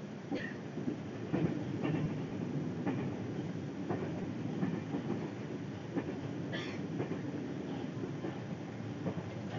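Steady rumble of a moving passenger train heard from inside the carriage, with scattered light clicks and knocks and one brief sharper noise about two-thirds of the way through.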